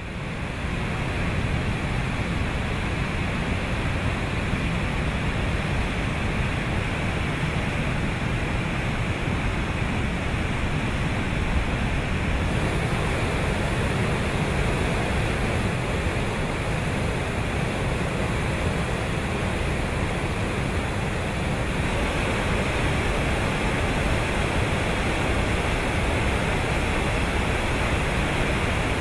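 Floodwater rushing over rock cascades in a river in flood: a steady roar of white water. It fades in over the first second and shifts slightly in tone twice.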